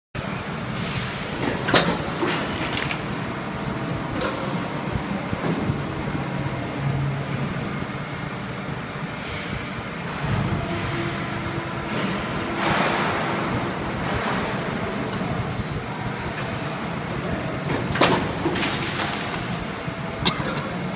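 Injection moulding machine cycling a flip-top cap mould: a steady machine hum, broken by a few sharp clacks about two seconds in and near the end, and two brief rushes of noise in the second half.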